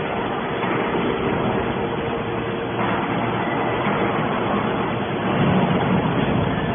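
Hydraulic scrap metal baler running: a steady machine drone with a constant hum, growing a little louder about five seconds in.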